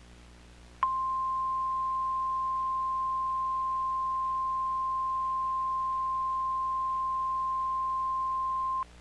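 NOAA Weather Radio 1050 Hz warning alarm tone: one steady, pure tone that starts about a second in, holds for about eight seconds and cuts off suddenly. It signals that an urgent warning message follows, here a severe thunderstorm warning.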